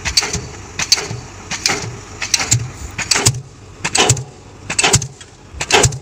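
Diesel pile hammer on a converted Komatsu PC200 excavator driving a concrete spun pile: loud, evenly spaced blows about one every 0.8 seconds, eight in all. The excavator's engine runs underneath between blows.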